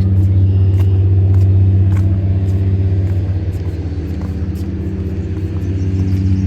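A motor vehicle engine running steadily: a loud, low, even hum that holds one pitch throughout.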